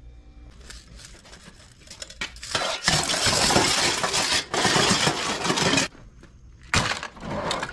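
Stainless steel scrap clattering into a bin of other stainless steel scrap: a long rattle of metal on metal, then a second, shorter clatter near the end.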